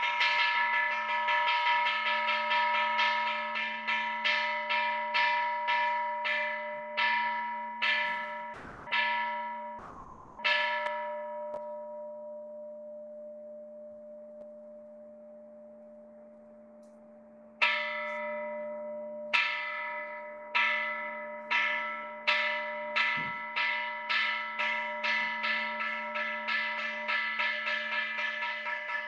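Buddhist temple bell struck again and again, each stroke ringing on. The strokes first come further and further apart, then one is left to ring out for several seconds. A new series then starts slow and quickens into fast, close strokes.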